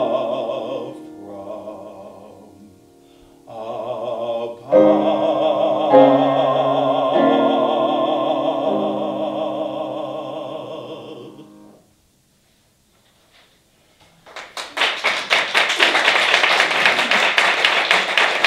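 Baritone singing an art song with grand piano accompaniment, closing on a long held note with vibrato over sustained piano chords that fade out about twelve seconds in. After a short pause, an audience applauds.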